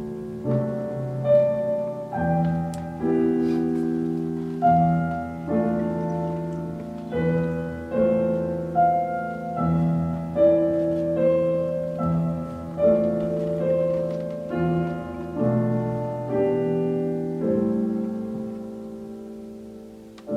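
Slow piano music: chords and single melody notes, each struck and left to ring and fade, about one a second, over held bass notes.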